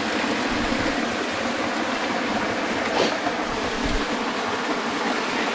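Stream water running, a steady, even rush.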